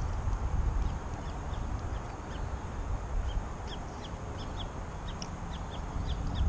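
A bird calling in a quick series of short, high, falling chirps, about two to three a second, starting about a second in, over a steady low rumble of wind on the microphone.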